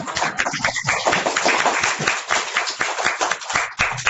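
A class of young children clapping, a fast, uneven patter of many hands.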